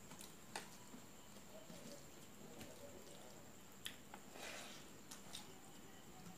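Faint sounds of eating rice by hand: a few sharp little clicks and smacks, and a brief soft wet mouth sound about four seconds in as a handful of rice is eaten.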